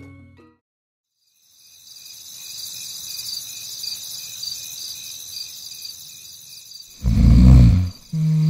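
Crickets chirping steadily in a pulsing high chirr, starting a second and a half in as a night-time sound effect. Near the end two loud, low-pitched sounds come in, one after the other.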